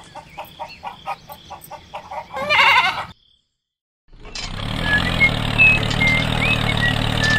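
A series of short, evenly spaced sounds, then a loud farm-animal call, a horse's whinny or goat's bleat, about two and a half seconds in. After a second of silence, a steady tractor engine starts running with short high chirps over it.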